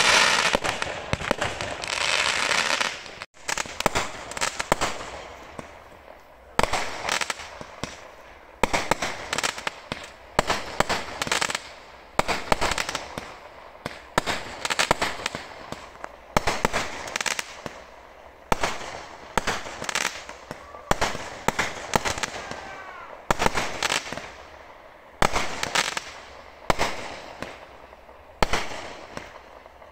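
Fireworks display. A dense crackling barrage of bursts cuts off suddenly about three seconds in. After that, aerial shells go off one after another, roughly a bang every second or so, each one trailing away.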